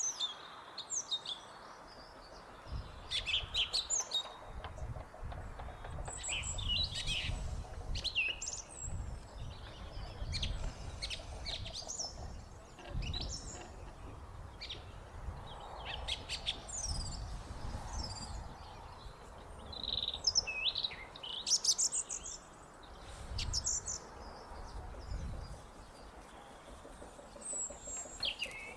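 Songbird singing in a run of short, varied, high-pitched phrases, some notes repeated in quick series, with a low rumble underneath at times.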